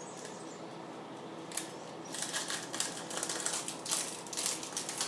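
Thin plastic packaging crinkling and crackling as it is handled and pulled open around a small pour spout; a rapid run of sharp crackles starts about a second and a half in.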